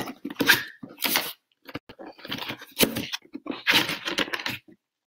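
Packaging rustling and crinkling in irregular bursts as a mini wax warmer is unwrapped and lifted out of a shipping box.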